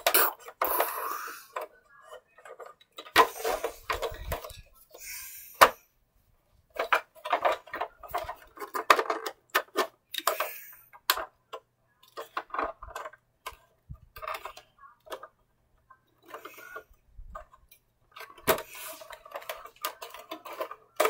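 Hard plastic toy vehicle being handled and moved about, clicking and rattling in short, irregular bursts with brief pauses.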